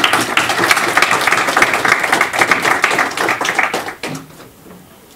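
Audience applauding: a dense run of handclaps that dies away about four seconds in.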